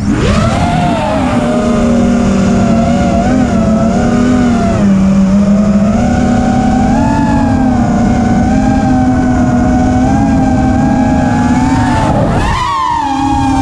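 Armattan Rooster FPV quadcopter's brushless motors and propellers whining in flight, heard from its onboard camera, the pitch shifting with throttle. Near the end the whine drops briefly as the throttle is chopped, then climbs again.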